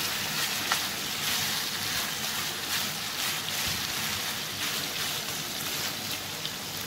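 Pork pieces sizzling steadily as they fry and brown in their own rendered fat in a nonstick pan, with light scrapes and ticks from a spatula stirring them.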